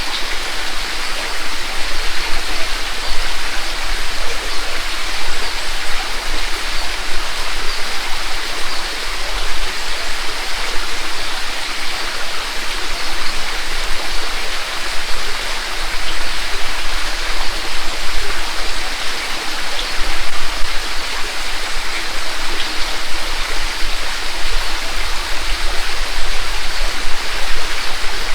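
A mountain creek rushing over a rocky bed and small falls: a steady, loud, even splashing and babbling of water.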